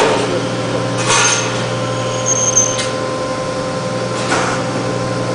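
Sheet-metal V-grooving (V-cut) machine running with a steady hum. A sharp click comes right at the start, then a few short hissing or scraping bursts follow about a second, nearly three seconds and just over four seconds in.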